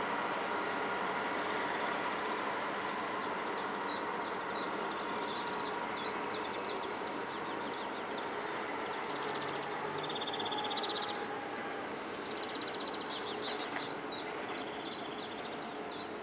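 Class 66 diesel-electric locomotive running light engine, its two-stroke V12 diesel giving a steady drone that slowly fades as it moves away. Over it a small bird sings quick high chirps in two spells.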